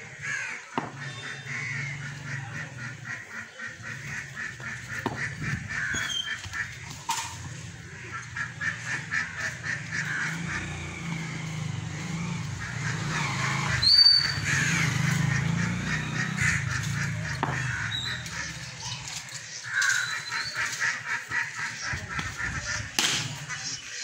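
Birds calling in fast, evenly pulsed runs, with a few sharp knocks. One knock near the end is a cricket bat hitting the ball.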